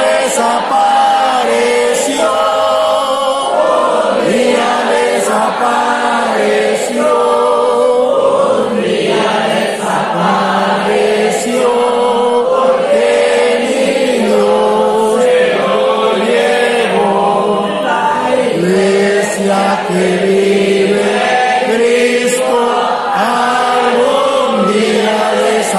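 A congregation of many voices singing a hymn together.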